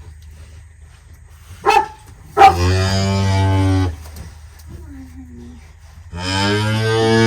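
A cow mooing: a short sound, then two long, steady low moos.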